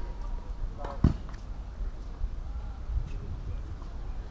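Tennis ball struck with a racket: one sharp, loud pop about a second in, over a steady low rumble of wind on the microphone.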